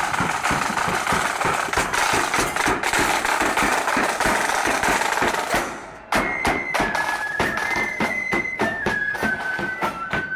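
Marching flute band playing, with snare and bass drums beating. After a break about six seconds in, the flutes' tune stands out clearly over the drum beat.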